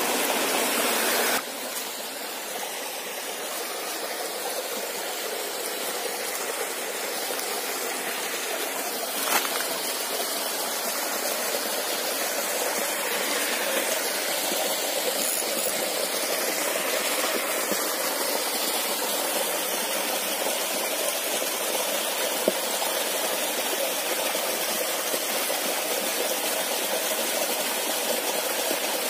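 A small waterfall and shallow stream running over rocks: a steady rushing of water. It drops to a lower level about a second in, and there is one faint knock near the middle.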